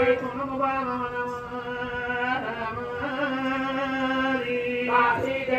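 A male voice singing a slow, chant-like Telugu Oggu Katha refrain with long held notes. A new phrase starts about halfway through and another near the end.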